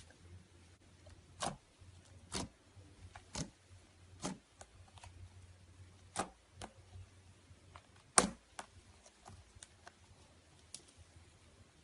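Slime being handled, squeezed and poked, giving irregular sharp clicks and pops about once a second, with one louder pop about eight seconds in.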